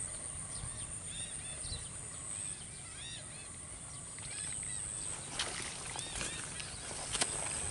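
Small birds chirping in short repeated calls over a steady high-pitched hum, with a few sharp clicks about five seconds in and again near the end.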